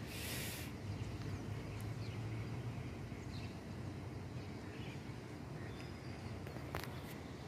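Outdoor ambience: a low, steady rumble with a few faint bird chirps, and a brief hiss right at the start.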